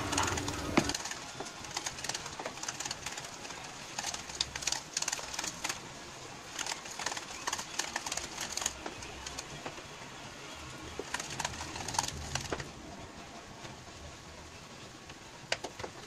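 A utensil beating butter and cocoa powder by hand in a bowl: irregular scraping and clicking against the bowl's side, in busy spells that thin out near the end.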